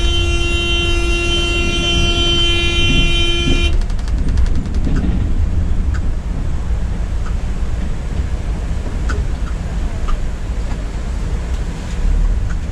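A long, steady vehicle horn blast that cuts off about four seconds in, over the continuous low rumble of engine and road noise inside a Volvo B9R multi-axle coach; a few faint clicks follow.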